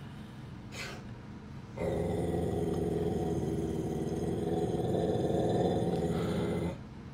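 Dog growling: one low, continuous growl lasting about five seconds, starting about two seconds in and stopping shortly before the end.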